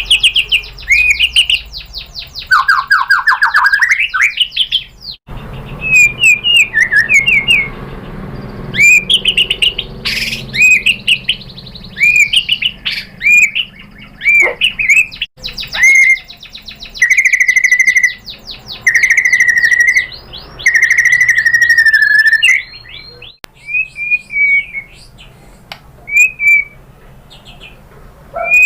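White-rumped shama (murai batu) singing a loud, varied song of rapid trills, rising and falling sweeps and slurred whistles, with short breaks between phrases.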